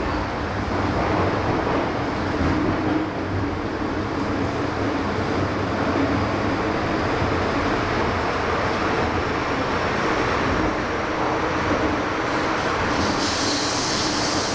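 MTR M-Train running through a tunnel, heard from inside the car: a steady rumble and hum of wheels and motors, with a higher hiss joining near the end.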